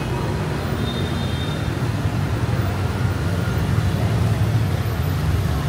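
Busy city street traffic: a steady low rumble of passing engines.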